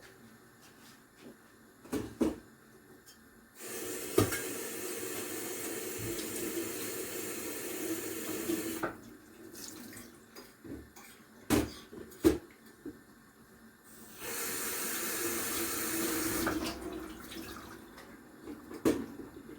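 Water running from a tap into a sink twice, about five seconds and then about three seconds, with a few sharp knocks of objects being handled between and after.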